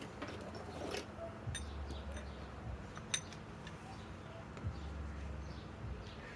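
A few light metallic clicks and clinks from tools being handled, as a socket is fetched and fitted for the impact wrench.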